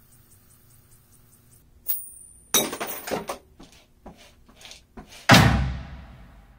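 Foley sound effects: a sharp click, then a quick cluster of knocks and rattles with a few scattered ticks, and finally a heavy, deep thud that dies away and cuts off suddenly.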